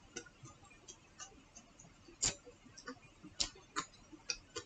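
Soft, irregular clicks and smacks of a person eating kiwi by hand, chewing and peeling the fruit, a little louder a couple of times past the middle.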